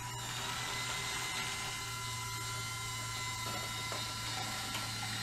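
Two Zemismart M027 battery curtain motors running along a curtain rod in opposite directions, opening to their set positions, with a steady electric-motor whine made of several tones.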